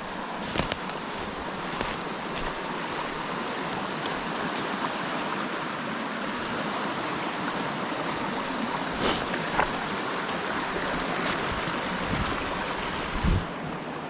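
Small mountain creek rushing steadily over rocks, with a few short knocks near the start, around nine seconds in and near the end.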